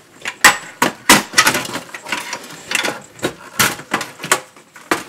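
Irregular sharp clicks and knocks of plastic and sheet metal as the power supply and its cable connectors are worked loose inside a Dell OptiPlex 7010 desktop's steel case.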